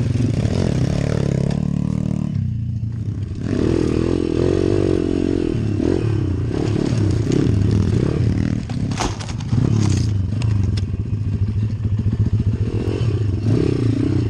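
Pit bike with a YX 140 single-cylinder four-stroke engine running hard and revving up and down on a rocky climb; the throttle is closed for a moment about two and a half seconds in. Sharp knocks and clatter of the bike over stones around nine and ten seconds in.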